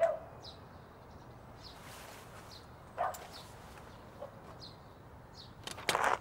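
Small birds chirping outdoors: short, high chirps about once a second. A few knocks or footsteps come through, the loudest cluster near the end.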